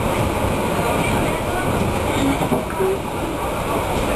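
Steady running noise heard on board a low-floor Alstom Cityway tram as it rolls along its track: a continuous rumble of wheels on rail and running gear.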